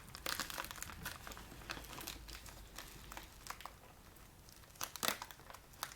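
Packaging being handled and opened: irregular crinkling and crackling, with a louder burst of crackles about five seconds in.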